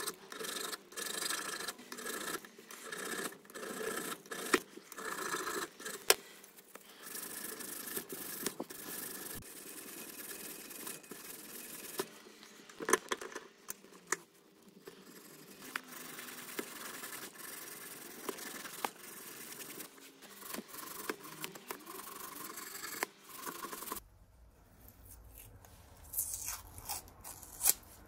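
A hand file rasping in repeated strokes over a knife's aluminium guard, then sandpaper strips rubbing and scraping over the metal. After a change near the end, a few light handling clicks follow.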